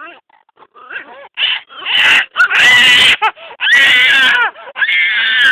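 A cat making a strange-sounding yowl: a few short cries, then three long, loud, harsh wails from about two seconds in.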